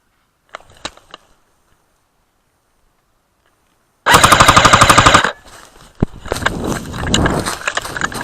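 Airsoft gun firing one rapid full-auto burst of a little over a second, very close and loud, after a few faint clicks; a busy noise with scattered sharp clicks follows.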